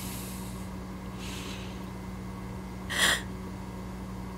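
A person's sharp sniff about three seconds in, with fainter breaths before it, over a steady low hum.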